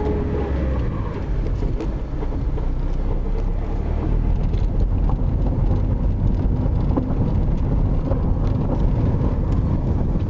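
Car driving slowly over a paved lane and then grass and dirt, heard from inside the cabin: a steady low engine and tyre rumble with scattered light clicks.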